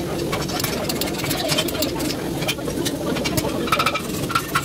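Steady whirring hum of a blacksmith's forge blower, with irregular light metallic clinks and taps over it and a few short ringing notes near the end.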